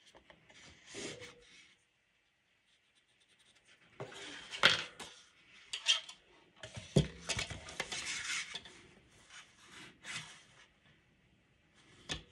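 Hands rustling and sliding black cardstock over a craft mat, with scrapes, clicks and one deeper knock about seven seconds in as a hard object is set down on the table.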